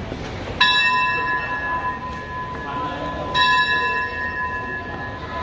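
A railway station bell struck twice, about three seconds apart. Each strike rings on with a bright metallic tone and slowly fades.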